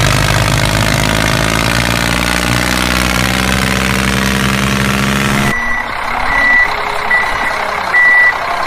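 Tractor engine sound running steadily, which cuts off abruptly about five seconds in and gives way to a reversing alarm beeping at an even pace.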